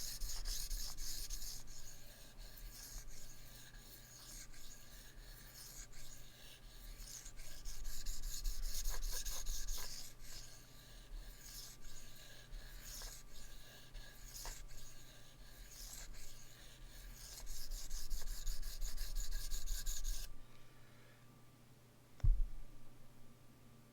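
Knife blade stroked back and forth across a Shapton 1000 whetstone in freehand sharpening, a steady run of gritty scraping strokes that swells and fades as the passes go. The stroking stops about 20 seconds in, and a single knock follows about two seconds later.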